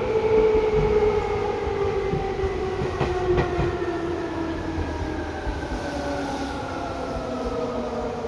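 Seibu 2000 series electric train running: a whine of several tones from its traction motors and gearing falls slowly in pitch as the train slows, over a steady rumble with a few sharp rail clicks.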